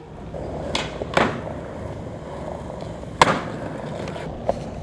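Skateboard wheels rolling on rough asphalt, with a few sharp clacks of the board striking the ground; the loudest comes about three seconds in.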